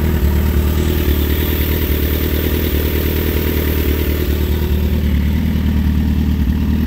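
2008 Suzuki GSX-R1000's inline-four engine idling steadily, fitted with new high-performance ignition coil packs.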